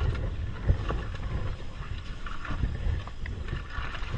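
A gusty low rumble on board a boat at sea, with wind on the microphone and a few knocks.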